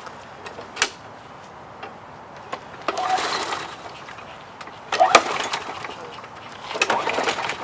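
Push mower's recoil starter pulled three times, about two seconds apart, each pull a short rattling whir; the engine does not catch and run, even with a splash of fuel put in.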